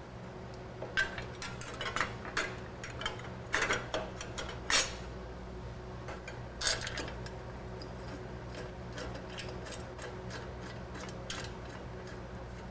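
Irregular light clicks and clinks of hard parts being handled and fitted, as chrome side covers go onto a motorcycle. The clicks are loudest and busiest in the first half, then thin out to faint ticks.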